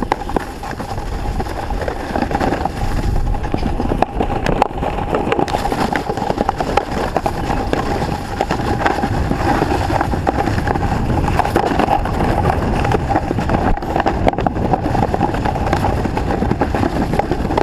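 Snowboard running fast down a packed-snow trail: a steady scraping rush of the board over the snow, with a faint steady hum in it and wind buffeting the camera's microphone.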